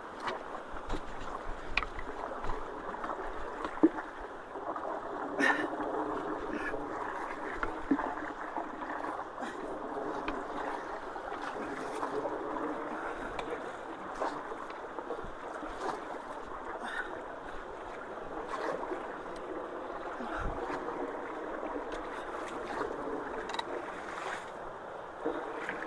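Creek water rushing and swirling down into a culvert inlet with a steady rush, flowing freely now that the blockage has been cleared. Small splashes and clicks are scattered through it.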